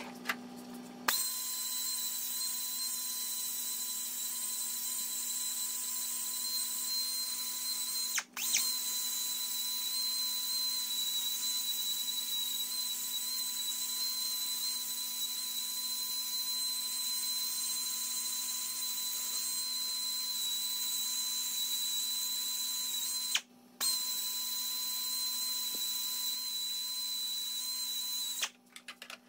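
Handheld power tool running at a steady high speed with a high-pitched whine and hiss, stopping for a moment twice.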